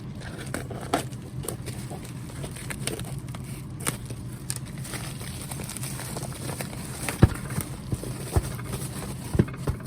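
Packaging being opened and parts handled: scattered crackles and small clicks, with a few sharper knocks in the last few seconds, over a steady low hum.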